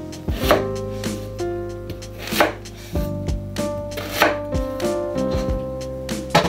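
Knife chopping food on a cutting board in uneven strokes, roughly one to three a second, over steady background music.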